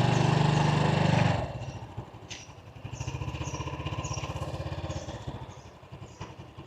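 Honda Blade 110 cc single-cylinder motorbike engine running under throttle, then eased off about a second and a half in, settling to a quieter, slow even pulse as the bike rolls in to park. A faint high chirp repeats about twice a second in the background.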